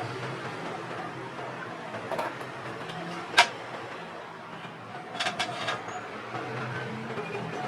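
A few sharp clicks and knocks over steady background noise: a single loud click about three seconds in, and a quick run of clicks a couple of seconds later.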